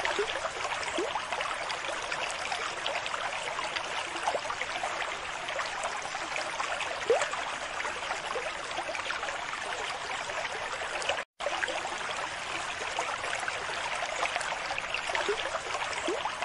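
Steady trickling and bubbling of aquarium water, with small rising plinks scattered through it. The sound drops out completely for a moment about eleven seconds in.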